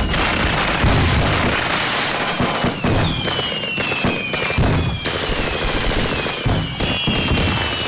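Fireworks going off: a rapid string of sharp firecracker bangs and low booms, with several whistles sliding down in pitch over them, one after another.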